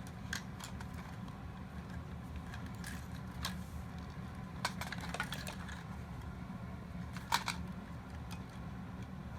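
Scattered clicks and light knocks of hard plastic toy-robot parts being handled during disassembly, the loudest a little after seven seconds in, over a steady low hum.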